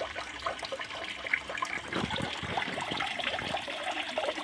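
Small pond's pump-fed water feature running: water pouring from a plant pot into the pond with steady trickling and splashing.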